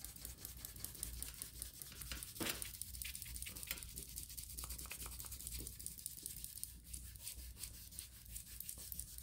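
Fingers rubbing back and forth across an index card laid on a sheet of polymer clay, burnishing gritty powder into the clay: a faint, rapid, scratchy rubbing.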